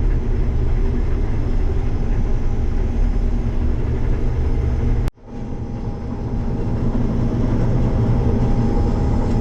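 Case IH 6088 combine harvester running steadily after warm-up, about to start cutting soybeans. The sound cuts out sharply about five seconds in, then comes back and builds up again.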